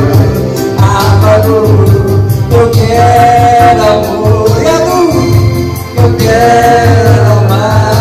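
A man singing karaoke into a microphone, amplified loud through a portable party speaker, over a backing track with a steady beat.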